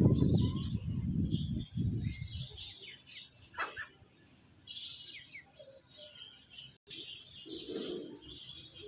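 Birds chirping over and over in short high calls, over a low rumbling noise that stops about two and a half seconds in.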